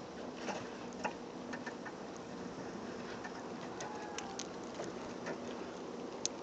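Falling snow ticking and pattering: scattered soft ticks over a steady faint hiss, with a sharper tick near the end.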